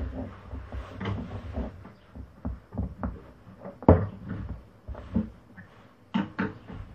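Small wooden pieces knocking and clicking against one another and against the wooden workbench as they are handled and glued. One sharper knock comes about four seconds in, and a few more just after six seconds.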